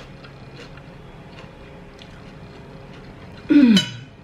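A person tasting food lets out one short, loud vocal exclamation of approval, falling in pitch, about three and a half seconds in. Before it there are only a few faint clicks.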